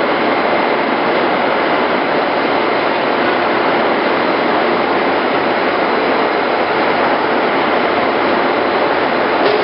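POREBA TCG 125 heavy-duty lathe running under power, a loud, steady mechanical running noise from its drive and gearing with a faint steady whine over it.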